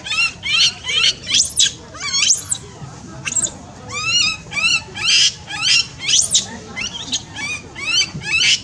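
Baby long-tailed macaque screaming in distress: a rapid, unbroken string of shrill cries rising in pitch, about two a second.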